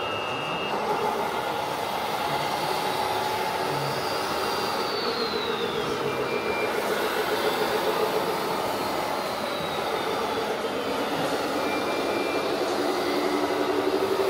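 Radio-controlled model trucks and construction machines running: a steady mechanical whir, with a high motor whine that falls in pitch twice.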